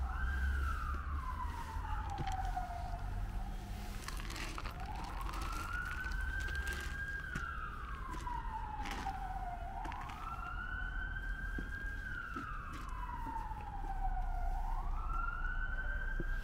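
An emergency-vehicle siren sounding a slow wail: its pitch rises quickly, holds for a moment, then slides slowly down, starting over about every five seconds. A steady low rumble runs underneath.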